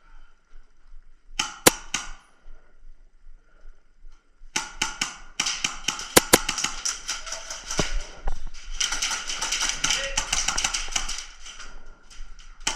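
Airsoft guns firing: a few sharp shots about a second and a half in, then from about four and a half seconds a long stretch of rapid, clattering fire.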